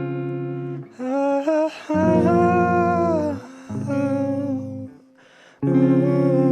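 Live guitar music: sustained guitar chords under a wordless held vocal line, stopping briefly about five seconds in and then starting again.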